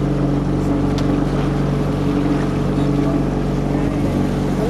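Motorboat engine running steadily: an even, unchanging low drone.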